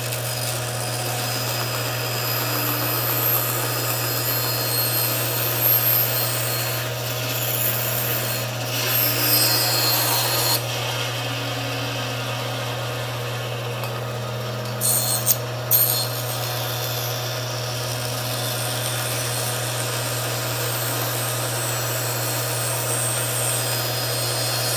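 Band saw running with a steady motor hum while its blade cuts through a thin board, trimming around a triangle on a tilted table to leave a bevelled edge. The cutting noise swells several times and has two short, sharp bursts about two-thirds of the way through.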